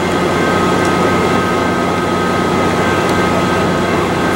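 Diesel passenger locomotive running steadily at a station, a constant mechanical drone with a steady high whine over it.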